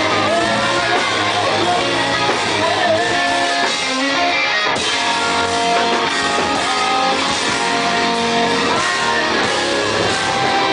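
A rock band playing loud and steady on stage, with guitars to the fore.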